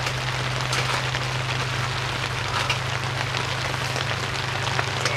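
Steady rain falling on a tent, with scattered drip ticks and a steady low hum underneath.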